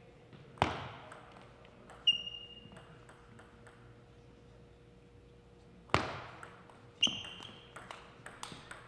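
Table tennis ball being struck and bouncing, echoing in a gymnasium: two loud sharp cracks, each followed about a second later by a ringing ping, then a run of light quick ticks near the end.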